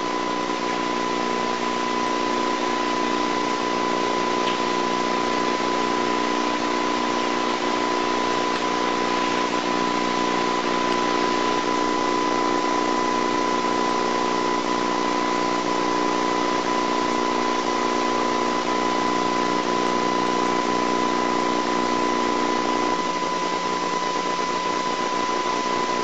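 Steady hiss with a constant high tone and a low hum, unchanging throughout and with no other sound in it: background noise of an old videotape recording.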